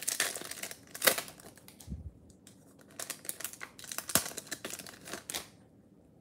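A foil wrapper of a Bowman baseball card pack crinkling and tearing as it is opened by hand. Sharp crackles come in clusters, loudest about a second in and again around four seconds, and die away shortly before the end.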